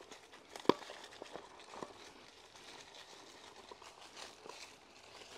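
Faint, irregular crackling and crunching of leaf litter and twigs on a forest trail, with one sharp click about two-thirds of a second in.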